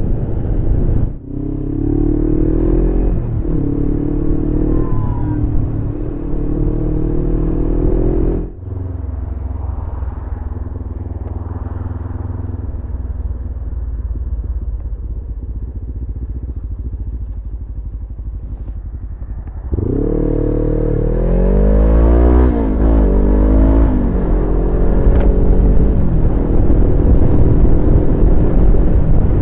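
Suzuki GS500E motorcycle's parallel-twin engine under way, its pitch climbing with revs and dropping at each gear change. It is loudest and climbs hardest in the last third, and the sound changes abruptly a few times.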